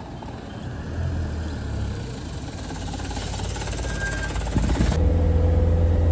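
Minibus approaching and pulling in to the kerb, its engine and tyres growing steadily louder as it comes close. About five seconds in this gives way to the steady low drone of the bus engine heard from inside the cabin.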